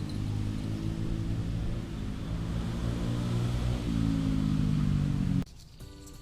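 A motor vehicle engine running steadily, its pitch shifting slightly, then cutting off suddenly near the end.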